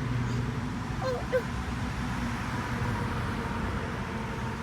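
Steady low hum and hiss of background noise, with a short voice sound about a second in.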